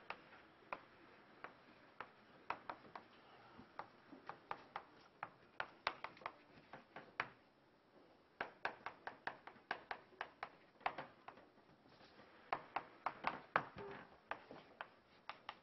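Chalk tapping against a chalkboard during writing: runs of quick, sharp taps with a brief pause a little after halfway through.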